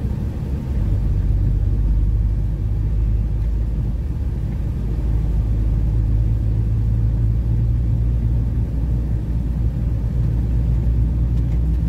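Heavy truck's engine running steadily while under way, a low rumble heard from inside the cab that gets louder about a second in.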